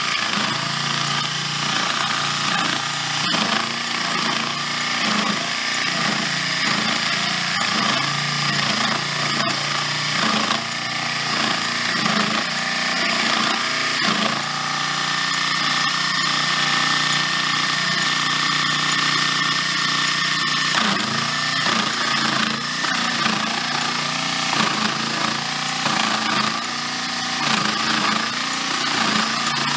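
Small electric motor of a Unimat 1 toy machine running with an end mill cutting into a softwood block, a scratchy cutting noise over the motor's whine, its pitch wavering up and down as the cut loads it.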